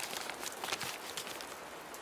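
Steady rain with a few scattered keyboard keystrokes in the first half.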